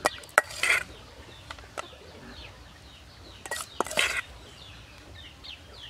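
Birds chirping in short, high, falling notes, with scattered sharp clicks and knocks.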